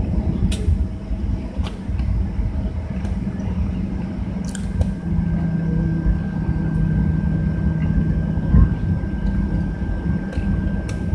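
Cabin noise of a Boeing 737-900ER taxiing: a steady low rumble and hum from its CFM56 engines at taxi power and the rolling gear, with a thin steady whine from about halfway through and a few light clicks.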